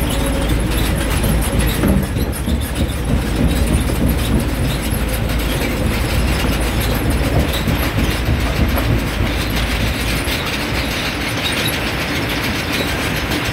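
Stone crusher machine crushing rock: a continuous dense clatter of cracking and rattling stone over a low machine rumble. The rumble drops away about ten seconds in.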